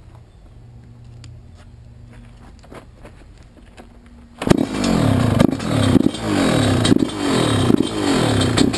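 Yamaha YZ125 single-cylinder two-stroke engine, freshly rebuilt with a new Wiseco piston, bursts into life about four and a half seconds in and is blipped repeatedly, its pitch dropping after each blip about twice a second.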